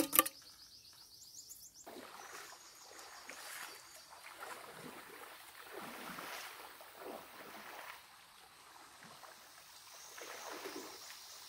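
River water swishing and lapping, with soft, irregular splashes.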